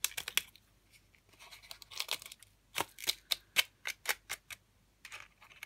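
Small craft scissors snipping the edges of folded paper: a series of short sharp snips, coming in quick runs, with a steady stretch of about four snips a second in the middle.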